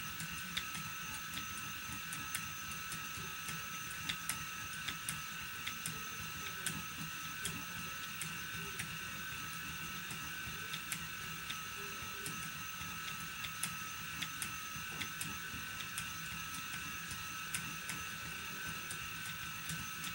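Phoenix electric spinning wheel (motor spinner) running at a slow, steady speed, its motor and whirling flyer giving a steady whir with several high tones, with irregular light clicks as short-staple cotton is spun onto it.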